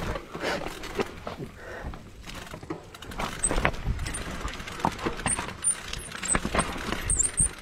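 Mountain bike descending a rutted dirt trail: tyres crunching over dirt and loose stones, with irregular clicks and rattles from the bike over the bumps.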